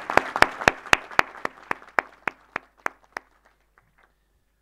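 Audience applause dying away: dense clapping thins to a few scattered claps and stops about three seconds in.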